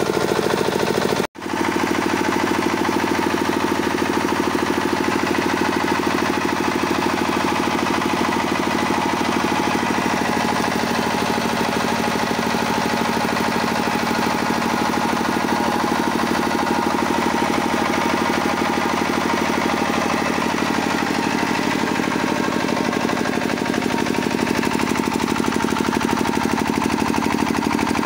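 Kirloskar diesel generator engine running steadily, with an even firing rhythm. The sound breaks off for an instant about a second in, then carries on unchanged.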